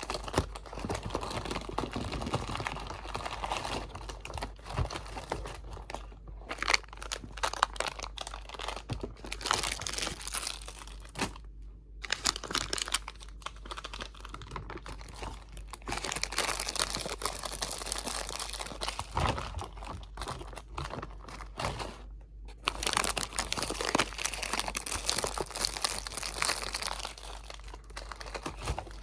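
Crinkly material crumpled and rubbed very close to the microphone in a continuous crackle, with brief pauses about six, twelve and twenty-two seconds in.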